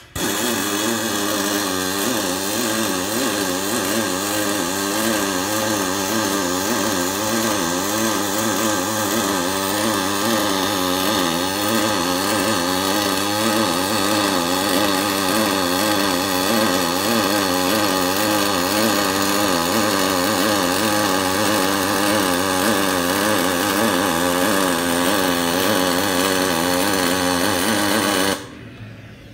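Pulsed MIG welding arc on 5052 aluminum plate, from a Miller XMT304 with an Optima pulse box feeding 0.047 in 5356 wire. A steady, loud buzz whose pitch wavers up and down in an even rhythm, cutting off about a second before the end as the arc is broken.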